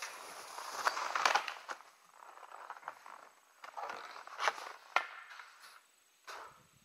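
Telemark skis hissing and crunching through deep powder snow, then a skier crashing into the snow, with a couple of sharp knocks about four and five seconds in.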